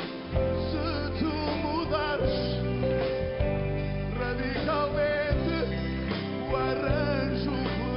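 A man singing a Portuguese pop ballad live with a backing band of drums, bass and guitar.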